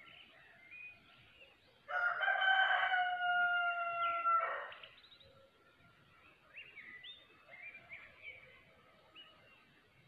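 A rooster crowing once, a loud call of about three seconds ending in a long held note that sinks slightly in pitch. Afterwards small birds chirp in short rising notes.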